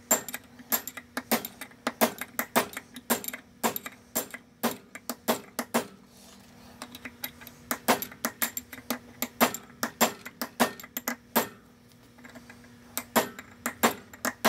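Hammer tapping a steel punch to bend the locking tab of the lock washer over against the pinion nut: quick, sharp metallic taps in irregular runs, pausing briefly about six seconds in and again about eleven seconds in.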